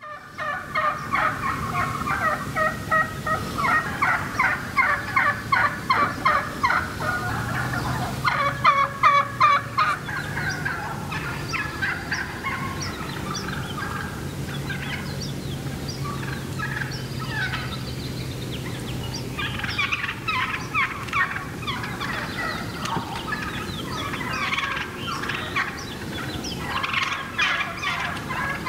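Wild turkey toms gobbling again and again in rapid, rattling runs. The gobbles are thickest through the first ten seconds and come again strongly in the last third.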